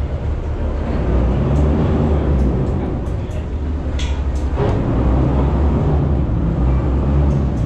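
Boat launch engine running with a steady low rumble, heard from inside the passenger cabin, with water and wind noise. A few light clicks or rattles come through in the middle.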